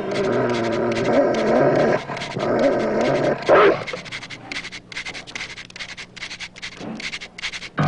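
Doberman pinschers whining and growling in wavering pitched tones, with a single short loud bark-like burst about three and a half seconds in, then quieter panting and snuffling.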